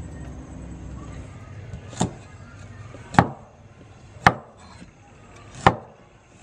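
Cleaver chopping on a round wooden chopping block: four sharp chops about a second apart, starting about two seconds in.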